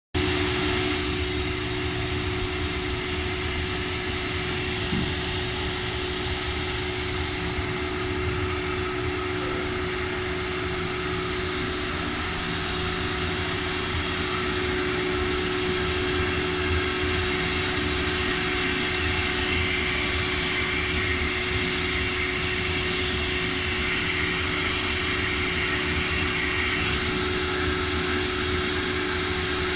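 Woodworking CNC machine running steadily: a constant whine over an even machine noise, growing a little louder and brighter about halfway through.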